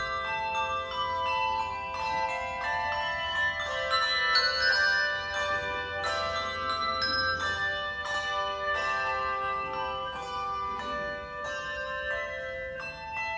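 Handbell choir playing a piece in several parts: bell notes struck in quick succession, each ringing on and overlapping the next, all in the middle and upper range with no low notes.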